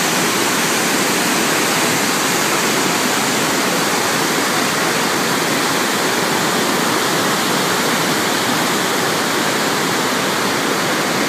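The Rhine Falls: a large waterfall's whitewater rushing as a loud, steady noise.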